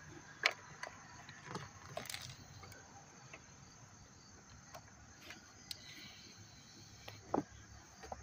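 Faint scattered clicks and light taps from hands and metal tools moving about in a car's engine bay, with insects chirring faintly in the background.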